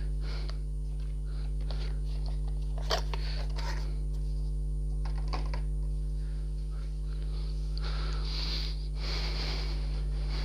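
Plastic bags and packaging of a model kit being handled: scattered light clicks and rustles, with a longer rustle of plastic near the end, over a steady low electrical hum.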